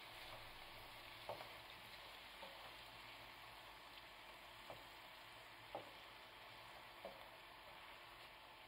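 Apple slices cooking in caramelised sugar and butter in a frying pan: a faint, steady sizzle, with a few soft knocks as a silicone spatula stirs them against the pan.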